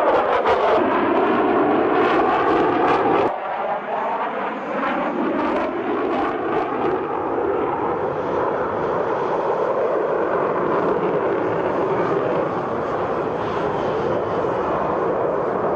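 F-15 jet fighter's engines passing in flight, their pitch falling as the jet goes by. A sudden cut about three seconds in leads to a second pass, again falling in pitch, which settles into steady jet noise.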